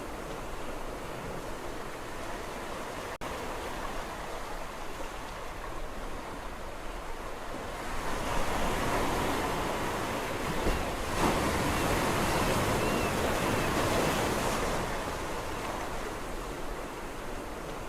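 Sea waves washing on a shore in a steady wash; one wave swells about eight seconds in, breaks loudest a few seconds later, then ebbs away.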